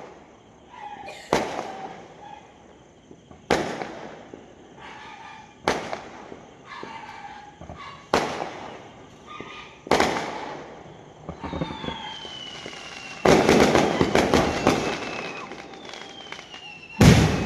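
Fireworks going off: single sharp bangs about every two seconds, then a rapid crackling volley of many small reports, with a long falling whistle under it and one more big bang near the end.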